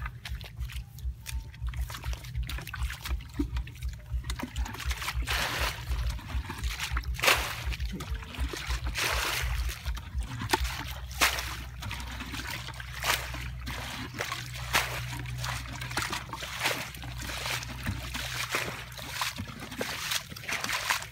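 Muddy water in a shallow rice-field pool being bailed out by hand with plastic buckets: repeated scoops, sloshes and splashes as water is tipped out, coming thick and fast from about five seconds in.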